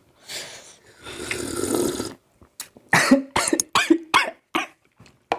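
A person slurping spicy asinan brine with a long hissing slurp, then coughing in a quick run of sharp coughs from about three seconds in, set off by the chili heat.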